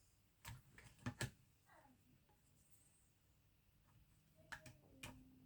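Faint, scattered clicks and light knocks of small RC car parts being handled: about three in the first second and a couple more near the end, with a faint short squeak in between.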